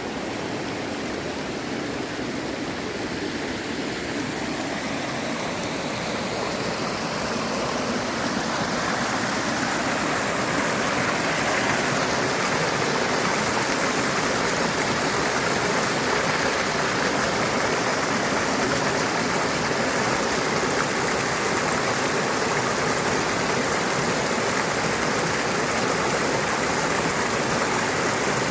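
Stream water rushing steadily, growing louder about eight to ten seconds in.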